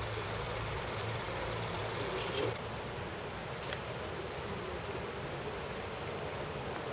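A vehicle engine running steadily with an even low hum.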